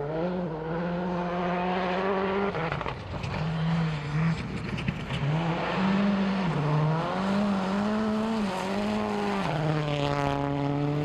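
A WRC rally car's turbocharged four-cylinder engine revving hard. The engine note climbs and drops back again and again as it changes gear, and near the end the pitch falls away.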